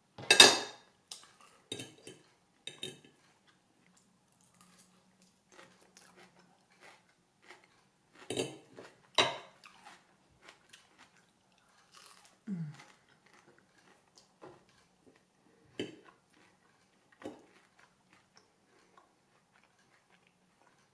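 A person eating a sandwich and salad: chewing and biting with sharp crunches at irregular intervals, the loudest just after the start, and occasional clinks of a fork on a plate.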